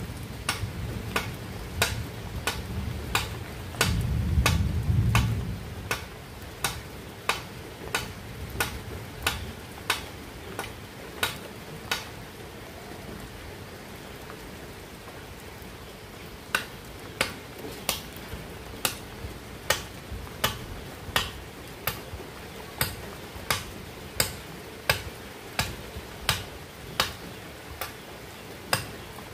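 Machete blade striking green bamboo in steady chopping blows, roughly three every two seconds, with a pause of about four seconds in the middle. A low rumble swells briefly about four seconds in.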